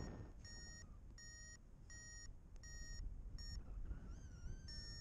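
Paragliding variometer beeping: short, evenly spaced beeps about one and a half a second, the tone a vario gives while the glider is climbing. A brief wavering tone sounds about four seconds in, over faint wind noise.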